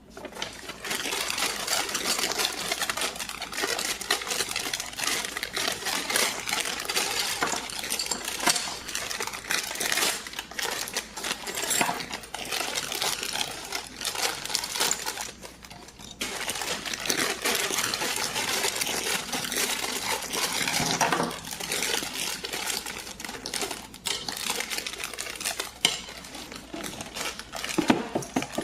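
Small hard plastic toy pieces clattering and clicking together as they are handled, with a short pause about halfway through.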